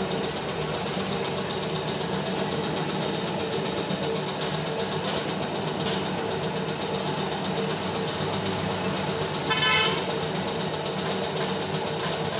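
Compressed-air paint spray gun hissing steadily as paint is sprayed onto a motorcycle fuel tank, with a steady motor hum underneath. A short horn toot sounds about ten seconds in.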